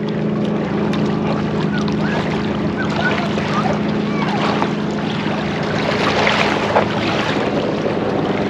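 Wind on the microphone and water lapping at a lake's edge, over a steady low hum.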